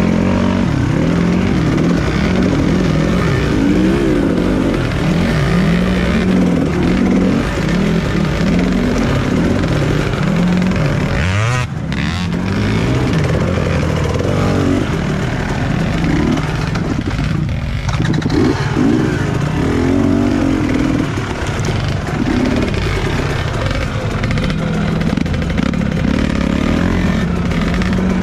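Dirt bike engine running hard with the revs rising and falling continually as the throttle is worked, dipping briefly and then climbing steeply about twelve seconds in.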